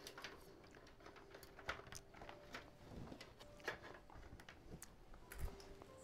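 Faint, scattered clicks and rustling from plastic cable ties and wires being handled and tightened while a bundle of PC power cables is tied up.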